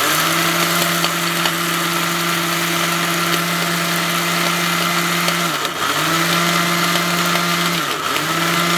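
A 1000-watt Orange blender's motor runs at speed, grinding dried turmeric to powder in a steel dry-grinding jar: a steady motor hum over the hiss and rattle of the grinding. Twice, about five and a half and eight seconds in, it cuts out briefly and spins back up.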